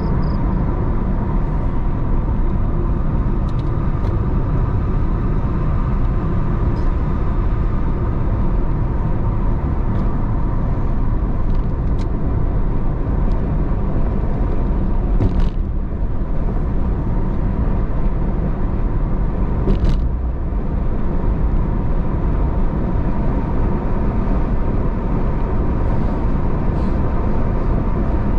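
Steady rumble of a car driving along a road: engine, tyre and wind noise, with two short knocks about halfway through.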